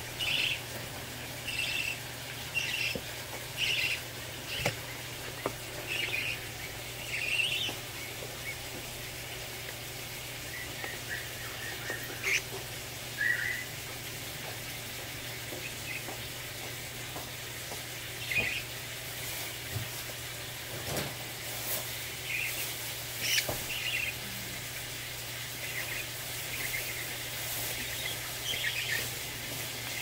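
Young parrot chick chirping in short, high, scattered calls over a steady low hum.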